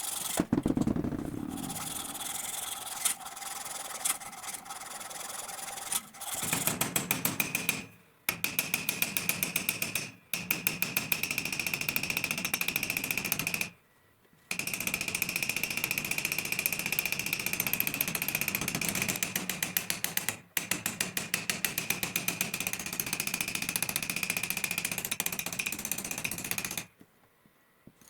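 Abrasive work on a knife: rapid, evenly repeated rubbing strokes with a steady high whine, in several short takes that cut off suddenly.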